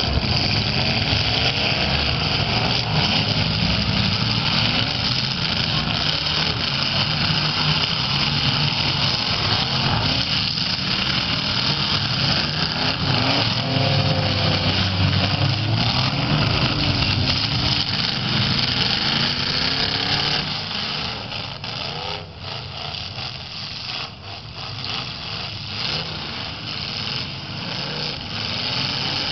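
Several V8 demolition-derby car engines running and revving hard against one another, the pitch rising and falling; the noise eases off somewhat about two-thirds of the way through.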